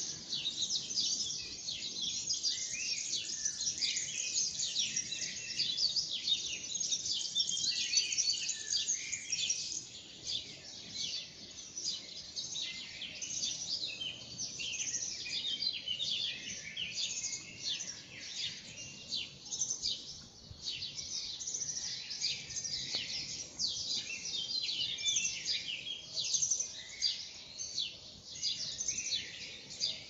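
Morning birdsong: many small birds chirping and singing at once, a dense overlapping chatter of high chirps, busiest in the first third and a little thinner after.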